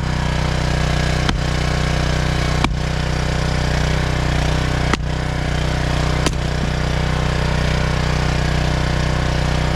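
Axe striking firewood rounds five times, sharp knocks about every one to two seconds and none in the last few seconds, over the steady running of a gas-engine log splitter.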